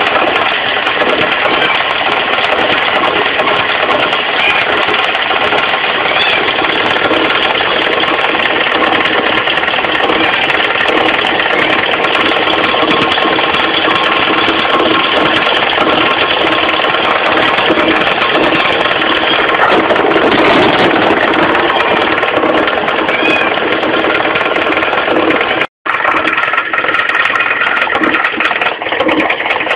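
Carbureted Mitsubishi 4G15 four-cylinder engine idling with a fast, continuous knocking rattle from a loose crankshaft pulley. The sound drops out for an instant near the end.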